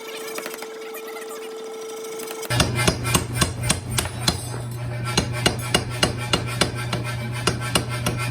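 Hammer blows on steel, coming in a quick run of about three to four strikes a second from about two and a half seconds in, with a short pause midway, over a steady low hum. Before the blows there is only a steady held tone.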